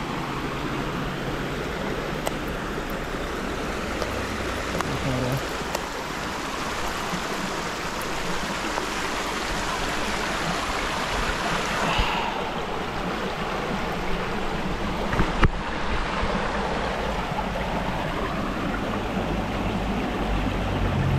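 Shallow mountain stream rushing and splashing over rocks and small cascades, a steady even wash of water. A brief sharp knock about three-quarters of the way through.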